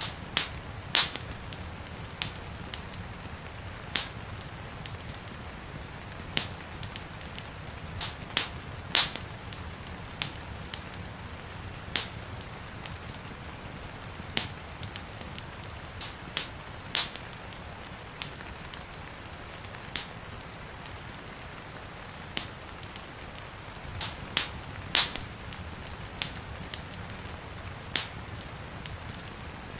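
Wood fire crackling in a fireplace, with sharp pops every second or two, over a steady hiss of gentle rain.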